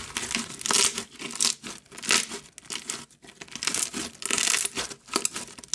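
White glue-based bead slime squeezed, stretched and pressed by hand, making repeated crackling crunches and sticky tearing and popping sounds in bursts.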